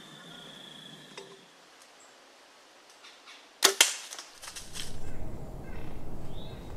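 A bow shot: one sharp crack of the bow and arrow a little after halfway, with a few quick clicks right after, as the deer bolts. A low rumbling noise then takes over.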